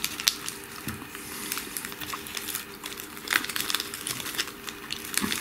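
Serrated knife sawing through a hand-held piece of meat: a run of small crackling, crinkling clicks.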